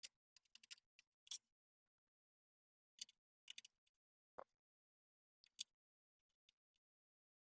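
Scattered small clicks and taps of a screwdriver and tiny screws against a motherboard and steel PC case as the board is screwed down, in short irregular clusters with silence between.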